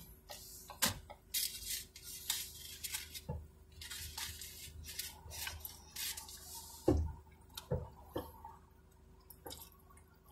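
Eating noises close to the microphone: chewing and lip smacks with irregular sharp crackles and clicks, over a faint steady car-cabin hum.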